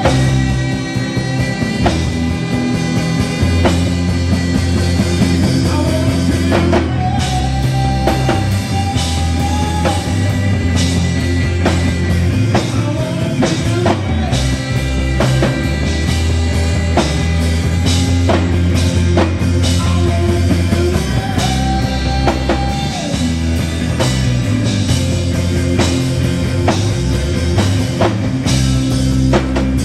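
Gospel rock band playing a passage with no words: a drum kit keeps a steady beat under a bass line and long held lead notes.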